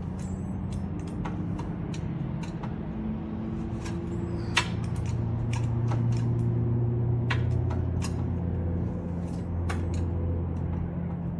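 Scattered sharp clicks and taps, the loudest about four and a half seconds in, as screen spline is pressed into an aluminium screen door frame's channel with a pizza cutter, over a steady low motor hum.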